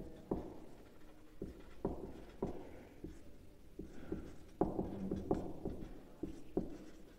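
Marker pen writing on a whiteboard: a string of short, irregular taps and strokes, about two a second.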